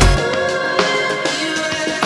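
Background music: an electronic track whose heavy bass and drums drop out just after the start, leaving melodic lines with light percussion.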